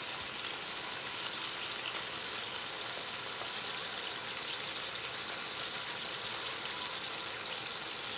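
Steady high hiss of food sizzling in a frying wok.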